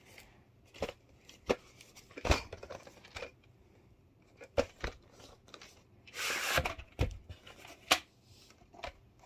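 Handling a VHS cassette and its cardboard sleeve: a string of light clicks and taps of plastic and cardboard, and about six seconds in a brief papery scrape as the cassette slides out of the sleeve.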